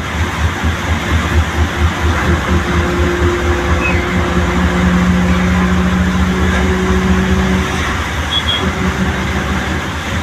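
Bus engine running steadily at highway speed, heard from inside the cab as a low throbbing rumble with a steady hum that swells about four seconds in and fades near eight seconds. A constant hiss of rain and tyres on the wet road runs under it.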